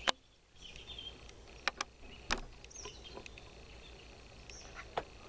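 A single sharp shot from a Kimber 82G .22 rimfire target rifle right at the start, followed by a few light clicks. Small birds chirp in the background.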